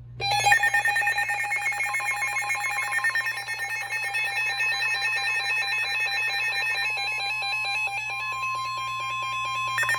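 Weather radio warning alert: a loud, rapid trilling alarm rings over steady tones, with the NOAA Weather Radio 1050 Hz warning alarm tone growing stronger and standing out near the end. It signals that a new severe thunderstorm warning is about to be read.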